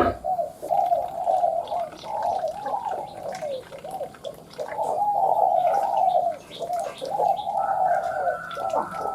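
Spotted dove cooing: a near-continuous run of short coos that glide up and down in pitch. A thin steady higher tone sounds over them near the end, and a click is heard at the start.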